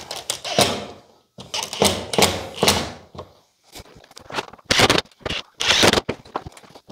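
Irregular knocks, scrapes and rustles of hands handling tools and materials, in short bursts with brief gaps.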